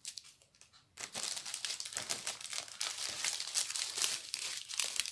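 A strip of small clear plastic bags of diamond painting drills crinkling as it is handled, with a dense, busy run of crinkles starting about a second in.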